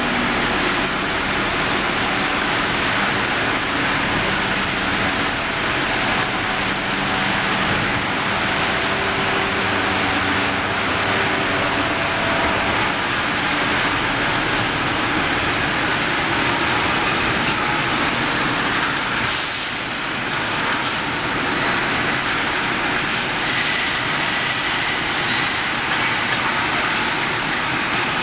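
Steel section rolling mill machinery running: a steady, loud mechanical noise from the cooling bed and roller tables, with a few faint hums that come and go in the first half.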